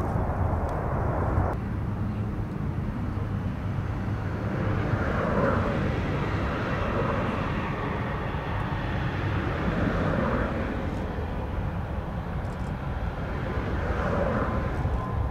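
Jet engines of a KLM Boeing 777-300 airliner running, a steady low rumble with a few softer swells in the middle range.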